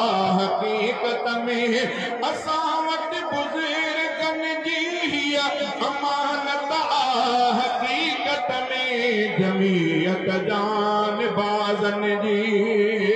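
A man chanting a Sindhi nazam (devotional poem) in a drawn-out, melodic voice, holding long wavering notes and sliding between pitches, amplified through a public-address system.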